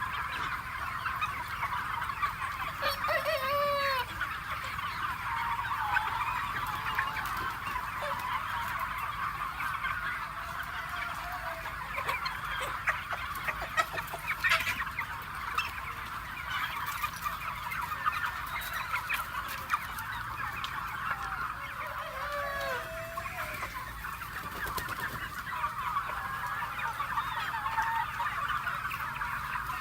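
A flock of free-range chickens clucking continuously, many birds at once, with a few louder single calls standing out.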